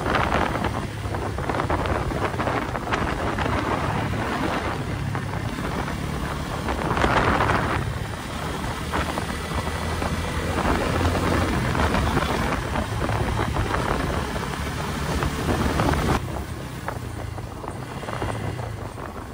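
Motorcycle engine running under way, mostly buried under heavy wind buffeting on the microphone. The rush drops off about sixteen seconds in as the bike slows for a bend.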